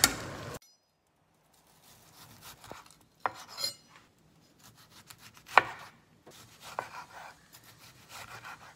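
Chef's knife slicing through a tomato and knocking on a bamboo cutting board: a handful of separate cuts, the loudest about halfway through.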